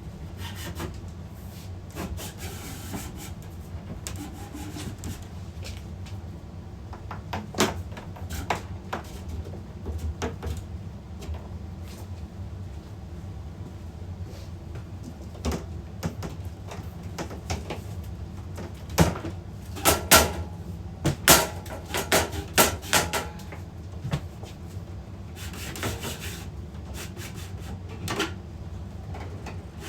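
A 1-inch PVC pole being fished through the holes of a 3D-printed filament rack: plastic rubbing and scraping, with scattered knocks and clicks. A cluster of sharper, louder knocks comes about two-thirds of the way through.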